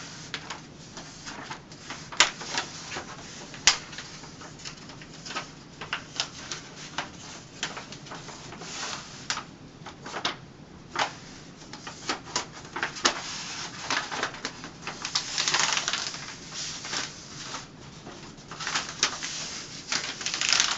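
Paper crackling and rustling as the wax-paper backing of a peel-and-stick wall mural is folded back and creased by hand: irregular sharp crinkles with a longer stretch of rustling past the middle.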